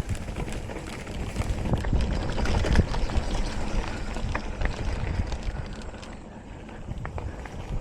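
Mountain bike riding over a rough dirt trail: uneven rumbling and scattered knocks and rattles from the bike over bumps, with wind rushing on the microphone. It is loudest about two to three seconds in and eases a little about six seconds in.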